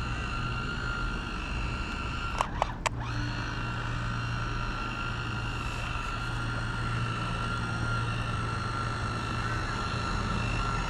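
Small RC fishing boat's motor running with a steady whine while it tows a hooked fish. Two short clicks come about two and a half seconds in.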